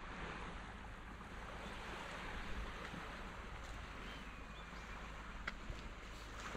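Seaside ambience: a steady hiss of wind and small waves washing on a sandy beach, with a single light click about five and a half seconds in.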